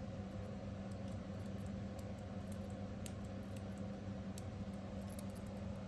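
Copper TopB mechanical fidget slider being worked back and forth, giving faint, irregular light clicks and a slight squeak that the owner puts down to its springs. A steady low hum sits underneath.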